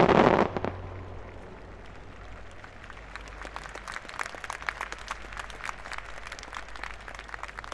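An aerial firework shell bursts with a loud boom that dies away over the first second. From about two seconds in, spectators clap in scattered, irregular claps that carry on.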